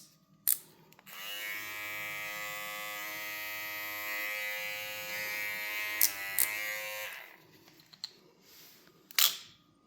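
TPOB Go cordless hair clipper with a guard fitted, switched on and running with a steady motor buzz for about six seconds. Its pitch dips briefly among two clicks near the end of the run, and it then switches off. A sharp click sounds near the end.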